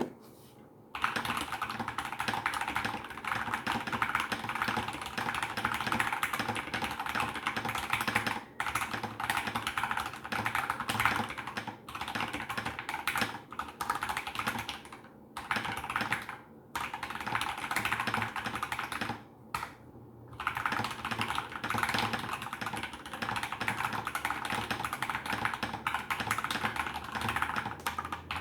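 Fast, continuous typing on a foamed Keychron K2 v1 mechanical keyboard with lubed Gateron Yellow linear switches. The keystrokes start about a second in and break off in a few brief pauses.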